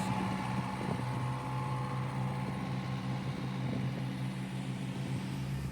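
An engine running steadily at an even pitch, a low hum with no break.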